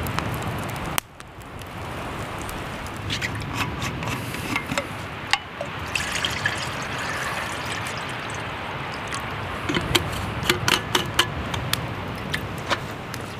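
Water poured from a metal water bottle into a stainless steel canteen cup, trickling steadily as the cup fills. A few sharp clicks come near the end.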